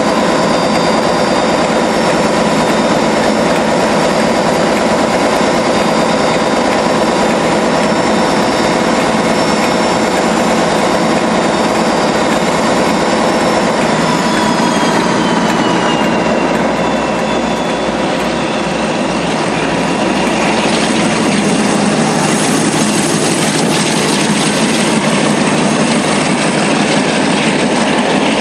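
Main-line diesel-electric locomotive standing with its engine running: a steady drone with a high whine over it. About halfway through, the whine slides down in pitch as the engine winds down, and after that a broader rushing noise builds toward the end.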